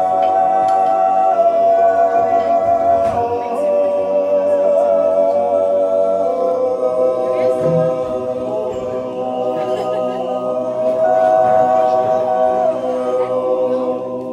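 Men's choir singing an Appenzell Naturjodel, a wordless natural yodel a cappella: long held chords with the top voice moving between notes above them, fading away at the very end.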